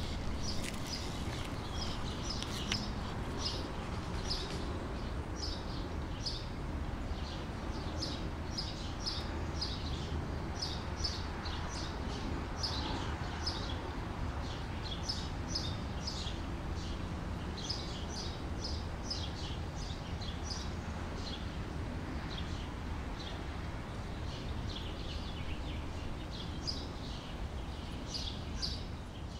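Birds chirping over and over in short, high calls that come in little clusters, over a steady low background rumble.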